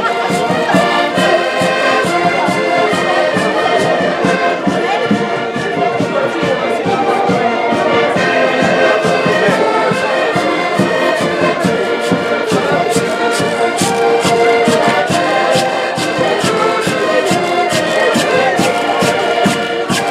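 Portuguese folk group playing accordions in a lively tune, with sharp percussion strokes marking a steady beat.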